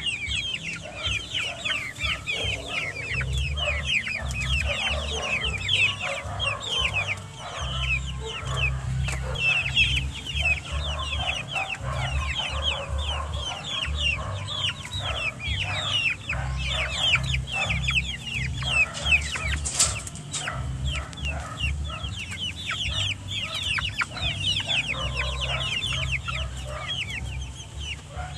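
A flock of chickens calling continuously as they feed, a dense chatter of rapid, short, falling peeps and clucks, with an uneven low rumble underneath and a single sharp click about two-thirds of the way through.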